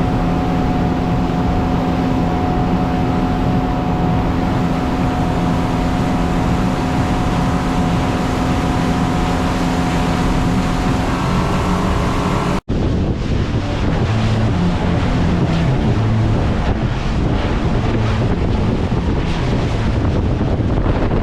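Motorboat under way, its engine droning steadily under rushing water and wind noise. About halfway through there is an abrupt cut to a stretch where gusty wind buffeting the microphone dominates over the engine and water.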